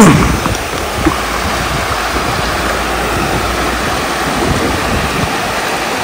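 Steady rushing of falling water from a waterfall, an even unbroken noise.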